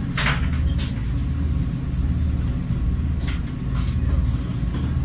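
River cruise boat's engine running with a steady low drone, heard from on board, with a few brief higher noises on top near the start and about three seconds in.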